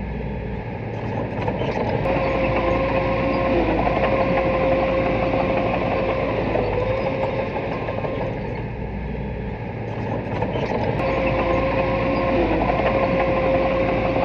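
Small bulldozer's diesel engine running under load with a steady whine on top. The sound swells about two seconds in, eases off around eight seconds, and swells again near ten seconds.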